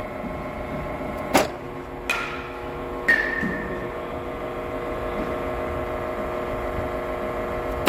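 Batting practice off a pitching machine: three sharp cracks, about a second and a half, two and three seconds in. The last one has a short metallic ring as the ball comes off a metal bat. A steady machine hum runs underneath.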